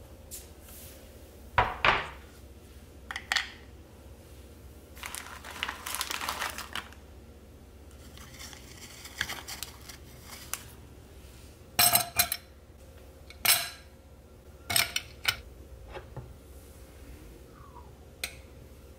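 Dishes and glassware being set down and handled on a kitchen counter: a series of sharp clinks and knocks, with two stretches of cloth or paper rustling between them.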